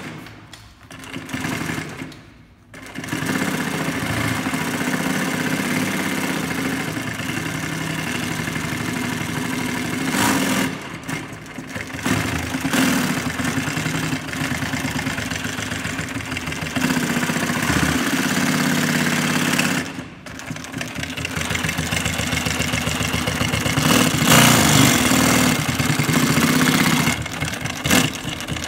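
Two-needle compound-feed industrial sewing machine stitching heavy red canvas, running in a fast, even rhythm. It stops briefly about two, eleven and twenty seconds in, then starts sewing again.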